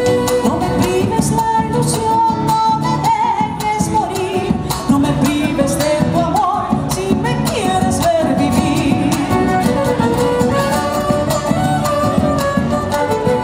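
Live Argentine folk music: a woman singing over violin, acoustic guitar and a bombo legüero drum keeping a steady beat.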